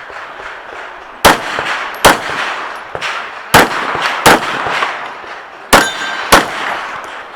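Six semi-automatic pistol shots fired as three pairs, about three-quarters of a second between the shots of each pair and over a second between pairs, one pair for each of three targets in tactical priority order.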